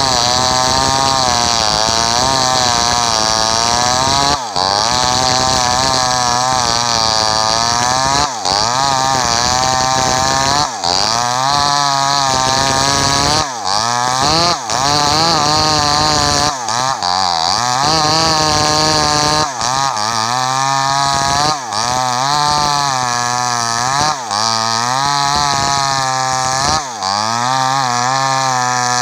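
Two-stroke chainsaw ripping a log lengthwise at high revs. The engine pitch sags under load and climbs back again and again, with a brief drop in the sound every few seconds.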